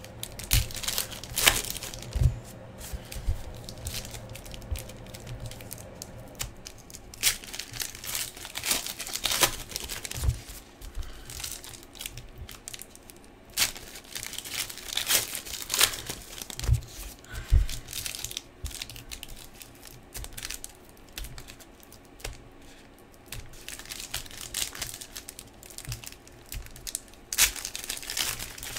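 Foil trading-card pack wrappers being torn open and crinkled by hand, in irregular sharp rips and crackles.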